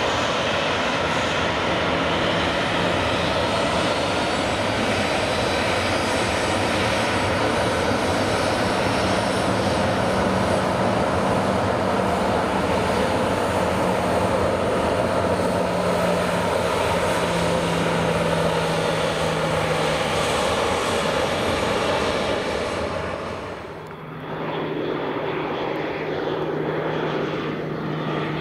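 Jet airliner engines running steadily. About 24 seconds in, the sound cuts to the steady drone of a Beechcraft King Air 200's twin turboprops on approach.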